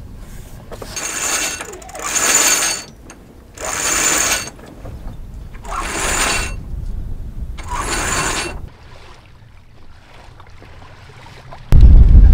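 Sailboat sheet winch being cranked in five short ratcheting bursts as the sheet is tightened. Near the end, loud wind buffeting the microphone starts suddenly.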